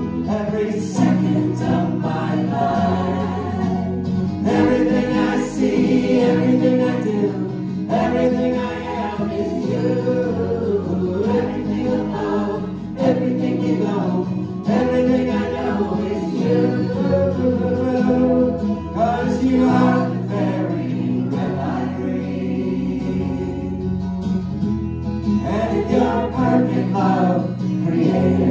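Live worship song: women's voices singing with acoustic guitar over a moving low bass line, played by a small church band.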